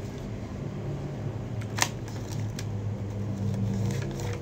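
Small clicks from handling a gift package: one sharp click about two seconds in and a few fainter ones. Underneath runs a steady low hum.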